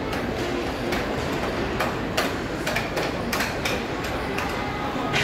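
Irregular sharp clacks and knocks of play over a steady rushing background, about a dozen impacts scattered through, from a team game in progress.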